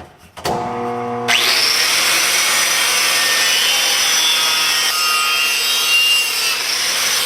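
A power tool spins up, then from about a second in grinds steadily against the steel wheel rim, a loud scouring noise, as the old bead sealer is cleaned off the rim.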